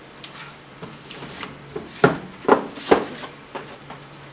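Cardboard box of sandpaper discs being handled and opened, with rubbing and rustling of the cardboard and three sharp knocks about two to three seconds in.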